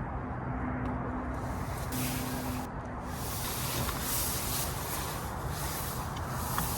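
Strong wind blowing in gusts: a steady rushing hiss that swells about three seconds in and eases near the end.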